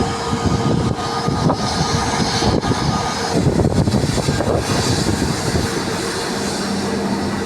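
Airbus A320's jet engines running at taxi power, a steady low rumble with a faint steady tone over it in the first few seconds.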